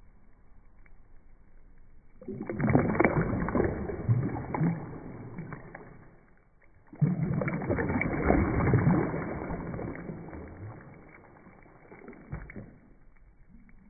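Water sloshing and splashing at the surface in two surges, each starting suddenly and fading away over a few seconds, with a short splash near the end.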